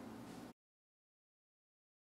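Near silence: faint room tone that cuts to dead silence about half a second in.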